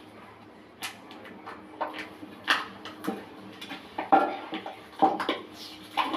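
Toilet fittings being handled and fitted at the back of a ceramic toilet bowl: an irregular run of sharp clicks, clinks and knocks of hard parts, loudest around the middle.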